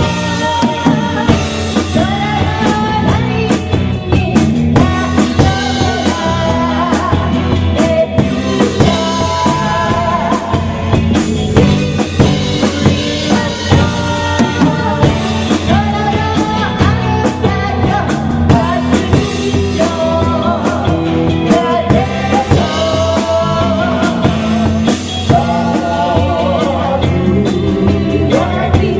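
Rock music: a singer's voice over a drum kit and band, with a steady beat.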